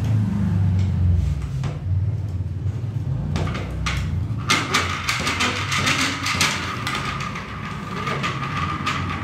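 Hand-cranked electromagnetic induction demonstration model being worked by hand. It knocks a few times, then from about four and a half seconds in it is turned, giving a fast rattling clatter with a steady high whine.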